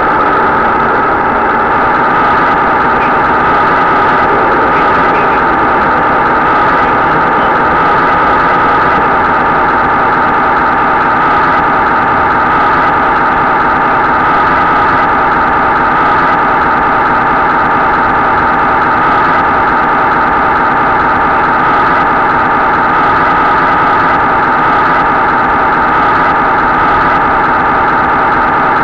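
RC model ZTZ99A tank standing still with its engine-sound unit running, a loud, steady idling drone heard right next to the on-board camera.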